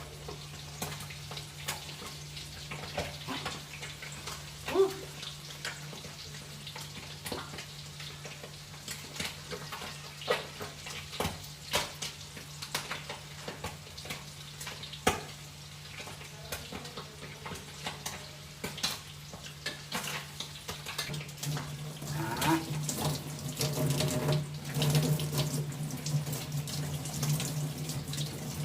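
Kitchen tap running into a sink while utensils are washed, with scattered clinks and knocks of metal and dishes. The running water grows louder about three-quarters of the way through.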